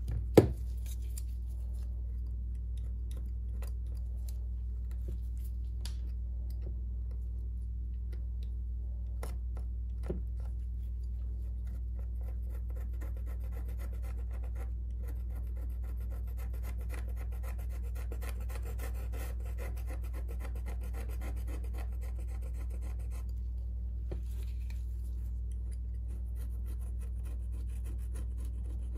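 A small hand tool scraping and rubbing on a Samsung Galaxy Note 9's frame, working off the old adhesive in short scratchy strokes. There is one sharp click about half a second in, and a steady low hum underneath.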